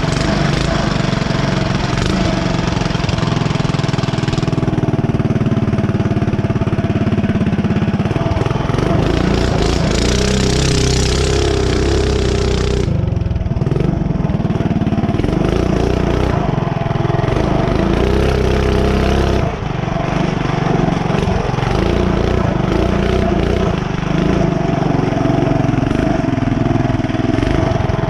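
Mini bike's small single-cylinder engine running under throttle while riding, its pitch rising and falling as the throttle is opened and eased off. A stretch of hissing noise comes in about ten seconds in and stops about three seconds later.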